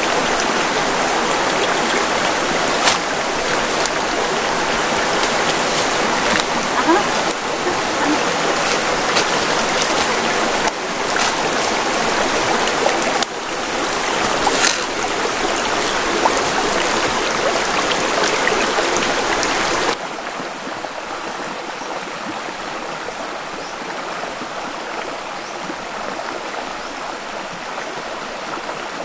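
Steady rushing of stream water, with a few light sharp clicks over it. About two-thirds of the way through it drops to a quieter, softer rush.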